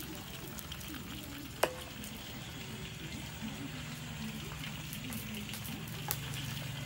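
Hot oil sizzling and crackling steadily in a wok, with one sharp ringing clink about one and a half seconds in.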